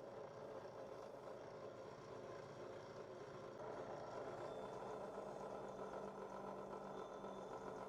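Electric motor spinning a wire-wheel brush against the rusty metal of an old blowtorch, a steady hum with a scrubbing rasp that grows louder a little past halfway through.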